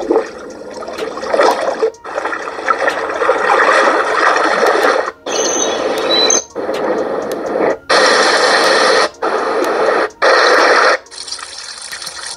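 Preset sounds from a Core Innovations Galileo alarm clock's small built-in speaker, switching to a new sound about every second or two with a brief cut between each as the selection is flipped through. Most of them are a steady rushing noise, some water-like.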